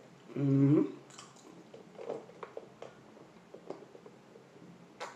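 A person drinking from a lidded plastic cup through a straw: a short hummed vocal sound about half a second in, then soft, irregular mouth clicks of sipping and swallowing.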